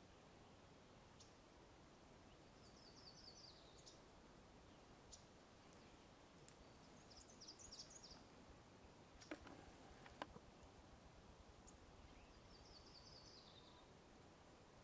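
Near silence with faint birdsong: a short run of quick high notes falling in pitch, heard three times about five seconds apart. Two sharp clicks come about two-thirds of the way through.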